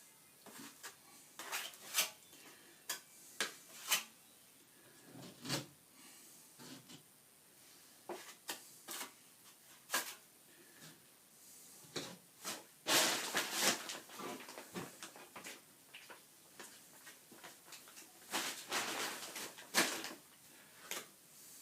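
Plastering tool working stiffened plaster mix into a hole in a wall: a string of sharp clicks and short scrapes, with longer scraping strokes about halfway through and again near the end.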